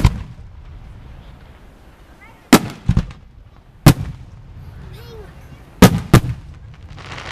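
Aerial firework shells bursting overhead: six sharp booms, some in quick pairs, each followed by a short rumbling echo.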